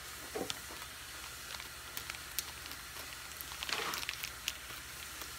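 Crinkling and crackling of a foil-lined snack wrapper being handled and torn open, with scattered sharp crackles and a denser burst about four seconds in.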